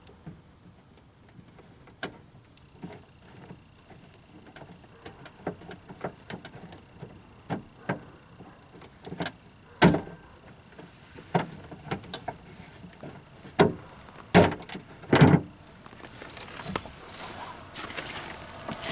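Irregular clicks, knocks and scrapes of metal and plastic parts inside a car door as the outside door handle and lock cylinder assembly of a 1994 Geo Prizm are worked loose and pushed out. A cluster of louder knocks comes in the last third.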